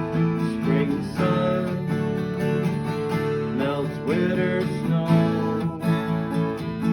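Acoustic guitar strumming a steady accompaniment in the instrumental close of a folk-style song, with a few gliding melody notes over it.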